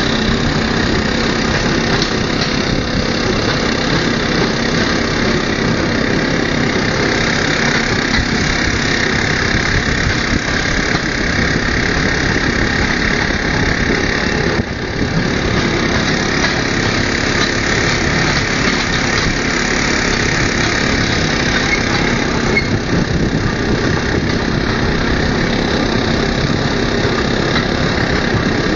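Engine of a motorized rail draisine running steadily under way on narrow-gauge track, a loud continuous drone mixed with running noise, dipping briefly about halfway.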